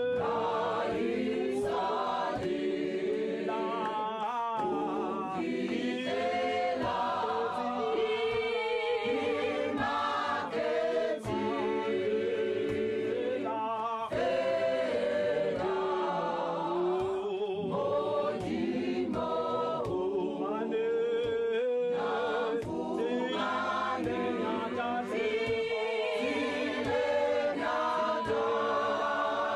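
Choir singing a cappella, many voices in harmony.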